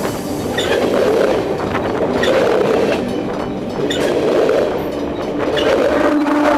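Train wagons rolling directly overhead on the rails: a steady rolling noise with a wheel click over a rail joint about every one and a half seconds.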